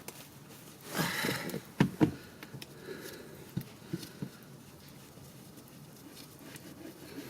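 Handling noises at the car's oil drain plug and wrench: a short scraping rustle about a second in, two sharp clicks just after, then a few light knocks as the loosened plug is worked out.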